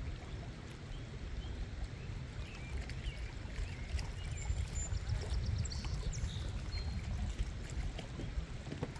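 Outdoor night ambience: a steady low rumble, with faint short high chirps scattered through it.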